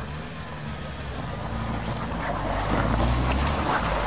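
UAZ Patriot SUV driving through icy, snowy ruts and passing close by: engine running with tyre noise on the packed snow, growing louder as it nears, loudest about three seconds in.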